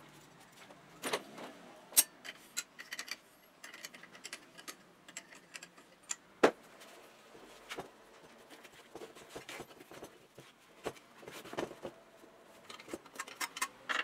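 Hand work on small bicycle parts at a workbench: scattered clicks, taps and metal clinks of a wrench and hands on a pedal and crank, then a wheel being handled, with two sharper knocks about two and six and a half seconds in.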